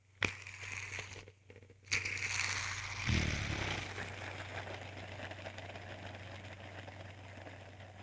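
Hand spinner flicked into motion, a sharp click at the start and another about two seconds in, then a sustained whirring bearing hiss that slowly fades as it spins down. A low thump is heard around three seconds in.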